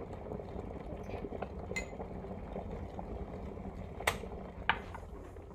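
A steady low background hum with a few sharp metallic clinks of a small metal measuring cup against a cooking pot, one about two seconds in and two close together near the end.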